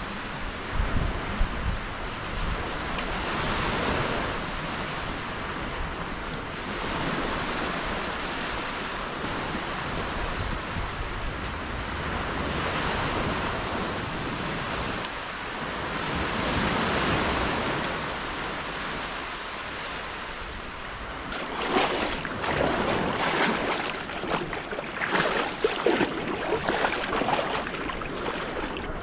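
Small waves washing onto a sandy beach, swelling and falling back every few seconds, with wind buffeting the microphone. From about two-thirds of the way in, choppier splashing and knocks close by, as the inflatable kayak goes onto the water.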